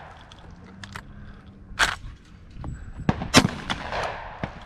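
Two shotgun shots about a second and a half apart, the second louder, each followed by a short echo.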